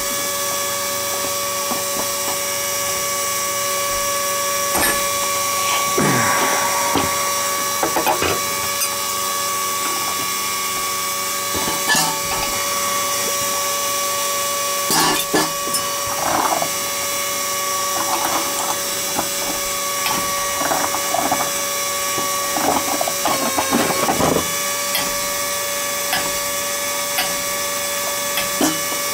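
Threaded steel pipe nipples being unscrewed from a water heater tank top with a pipe wrench: scattered metal clinks, scrapes and ratcheting thread noise, over a steady mechanical hum.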